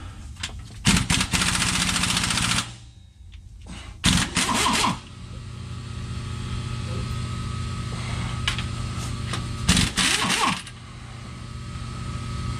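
Impact wrench hammering on the bolts of a driveline parking brake assembly in three bursts, the first and longest lasting under two seconds, the other two about a second each.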